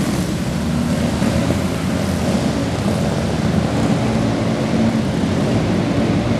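Several outlaw kage karts' small engines running at racing speed on a dirt track: a steady, loud droning of more than one engine, the pitch wavering as the karts go by.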